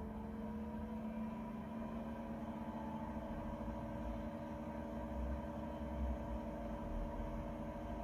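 Chinese diesel heater starting up after being switched on by remote: its fan motor hums with several steady tones, one of them rising slowly over the first few seconds as the fan spins up, over an uneven low rumble.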